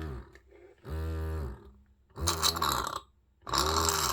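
Medela Swing electric breast pump's motor running through its suction cycles, about one stroke every 1.3 seconds, each stroke rising and then falling in pitch. The later strokes add a hissing rush of air and water being drawn in.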